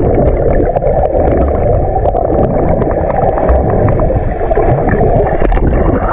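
Sea water heard from underwater: a loud, muffled rumble and gurgle, with many small clicks and crackles.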